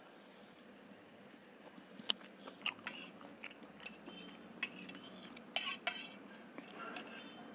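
Metal fork scraping and clinking on a stainless steel plate while gathering up noodles. It is quiet at first, then from about two seconds in comes a string of sharp clicks and short scrapes.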